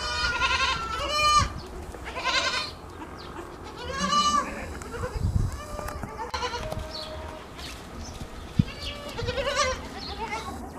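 Goat kids bleating: about half a dozen short, high calls, several in the first few seconds and more near the end.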